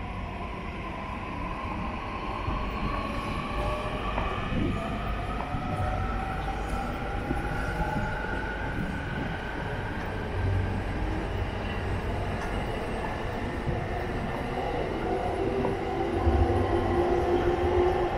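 Electric commuter train running on the tracks close by, its motors whining in several tones that slowly rise in pitch as it gathers speed, over a steady low rumble. It grows louder near the end.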